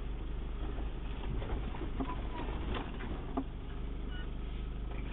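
Low engine rumble of an off-road 4x4 crawling over a rough dirt trail, heard from inside the cab, with scattered knocks and rattles from the body and a few short squeaks.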